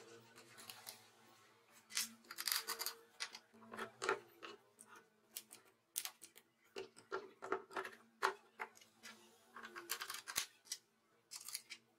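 Handling noises from fitting an electric hand planer into a plywood jointer box: irregular clicks, knocks and light scrapes, some in quick clusters, as the planer is lifted and set in place and wing nuts are turned. The planer's motor is not running.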